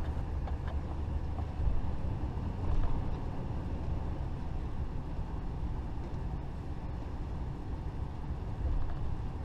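Class A motorhome driving slowly, with a steady low engine and road rumble heard from inside the cab.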